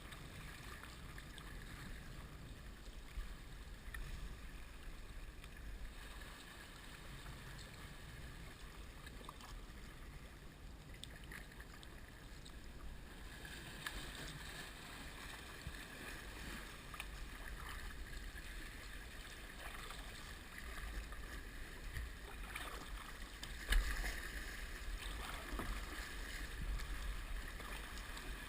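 Kayak paddling on the sea, muffled through a sealed head-mounted camera housing. There is a steady low rumble of water and wind, with irregular paddle splashes and sloshing that grow busier in the second half. The loudest splash comes about three-quarters of the way through.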